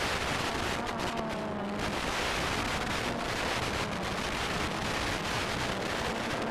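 Steady static hiss from an FPV drone's analog video receiver, with brief dropouts and faint tones buried in the noise.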